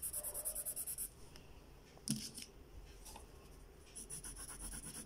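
Colour pen shading rapidly back and forth on paper, about ten strokes a second, stopping after about a second. A single knock comes about two seconds in, and the rapid shading strokes start again near the end.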